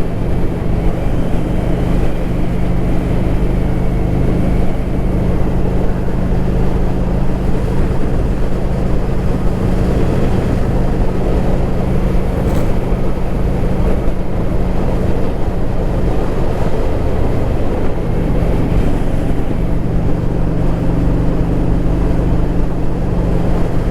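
A vehicle driving slowly on a rough dirt road: the engine running at a steady low speed over a constant rumble of tyres and body on the uneven surface. The engine note eases briefly about two-thirds of the way through, then comes back.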